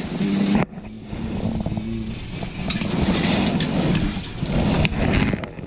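Rustling and rubbing of clothing and hands against the camera's microphone as the camera is moved about, a loud rumbling noise that drops out suddenly about half a second in and then comes back.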